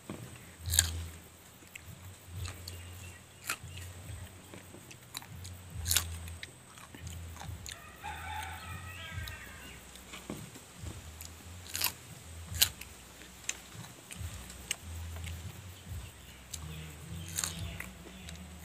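Raw green chillies being bitten and chewed, with sharp crunches every few seconds.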